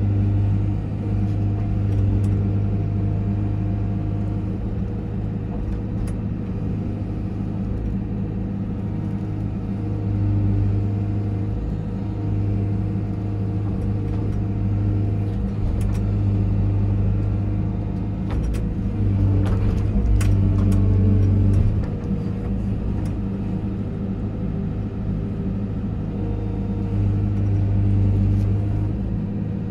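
Mini excavator's diesel engine running steadily, heard from inside the cab, swelling and easing as the hydraulics dig, swing and dump soil. Scattered clicks and rattles come with a louder stretch about two-thirds of the way through.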